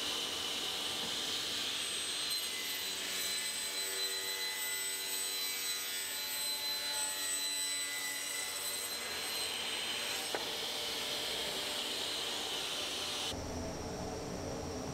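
Super Cut 1265 vertical panel saw running and cutting across the end of a pine door to bring it to finished height: a steady, fairly loud whining hiss with several high steady tones. The saw stops about 13 seconds in, leaving a lower hum.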